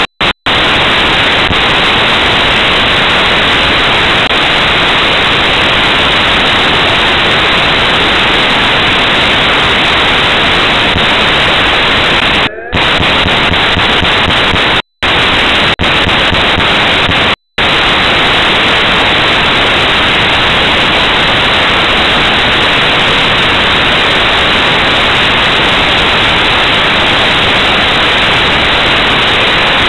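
Loud, steady static hiss from the recording's audio, with no sign of the toy's music or motor. It cuts out to silence briefly a few times around the middle.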